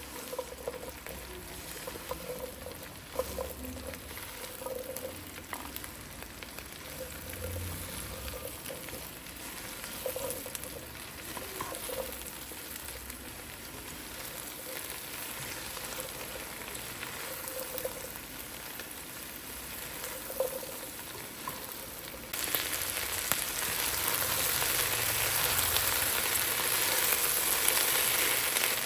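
Food frying in hot oil in a pan, a steady sizzle with occasional light knocks of stirring. About two-thirds of the way through, the sizzle suddenly becomes louder and brighter.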